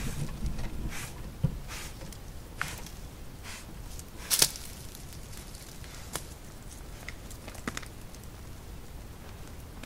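Overnight field recording of something large moving close to the recorder: faint rustling and scattered sharp clicks of footsteps, the loudest about four and a half seconds in. The narrator takes the walker for more than likely a black bear.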